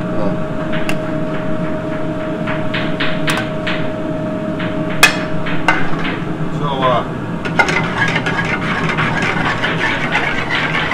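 Metal tongs clinking and scraping against an aluminum sauté pan, in a string of short sharp knocks, the loudest about halfway through. Under it runs a steady kitchen background with a thin whine that stops about halfway.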